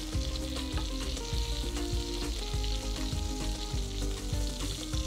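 Thick-cut beef tongue steaks sizzling in sesame oil in a frying pan: a steady hiss with small crackles. The pan is on low heat, with the steaks cooking through on their second side.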